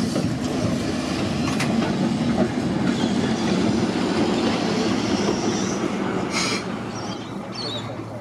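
Brisbane tram no. 341 running past at close range on steel rails, with a steady rumble, a faint high wheel squeal through the middle and a short sharp clack or two. The sound dies down toward the end as the tram slows.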